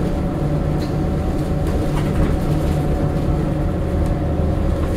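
Scania K94IB coach's engine and ZF automatic gearbox running while under way, heard from inside the passenger saloon: a steady low drone with a faint steady whine above it.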